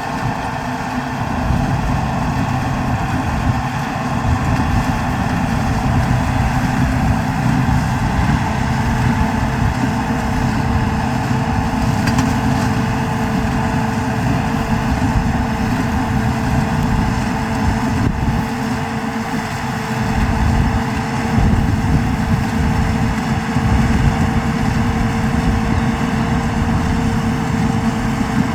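Tractor engine running steadily, a continuous rumble with a steady tone over it.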